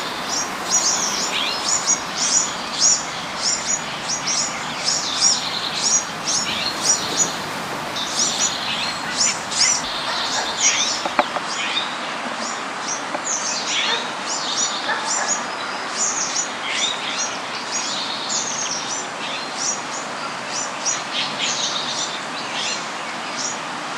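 Many tropical birds chirping constantly, rapid overlapping high calls, over a steady wash of gentle ocean waves on the beach.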